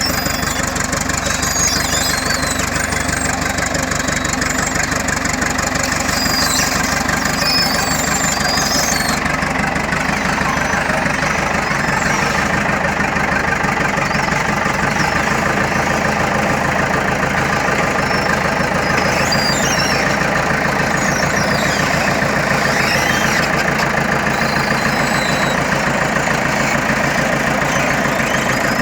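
Bulldozer's diesel engine running steadily with a fast, even knocking beat. Thin high squeaks come and go over it, in the first few seconds and again a little past the middle.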